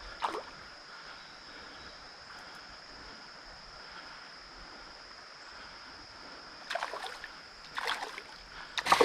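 Flowing creek water with a steady high-pitched tone over it. Short water splashes come once just after the start and in three brief clusters in the last two and a half seconds, as a hooked smallmouth bass is played at the surface.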